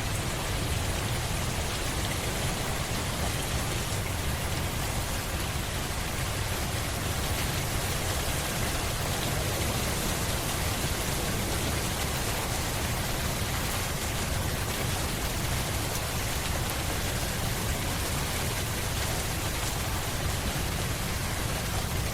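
Steady rain falling on a surface: an even hiss of many drops with a low rumble underneath, unchanging in level.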